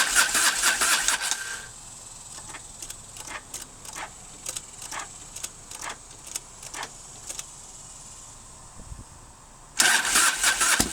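Electric starter cranking the 1997 Harley-Davidson Fat Boy's Evolution V-twin for under two seconds without it catching, then a few seconds of scattered clicks, then cranking again near the end. It is a hard start: the carburetor float bowl is empty and fuel has not yet reached it after the petcock was left shut.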